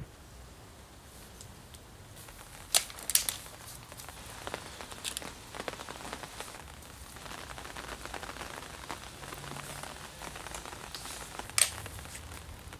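Light rain pattering, with a few sharp clicks: a cluster about three seconds in and one near the end.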